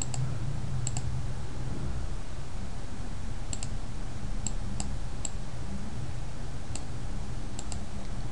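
Computer mouse clicking, a few sharp single and paired clicks at uneven intervals, over a steady low hum.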